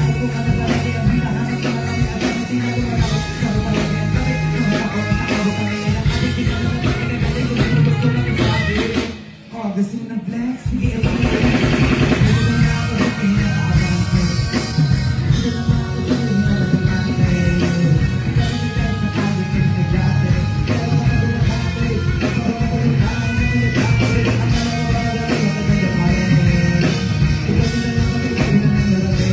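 Live hip-hop performance heard through a concert PA: a rapper on a handheld microphone over a loud backing track with a heavy beat. The music drops out briefly about nine seconds in, then comes back in full.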